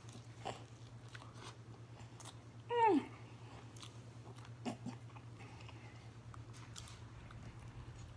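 Close-up mouth sounds of eating a fried chicken wing: soft chewing and biting with scattered small wet clicks. About three seconds in comes one short falling moan of enjoyment.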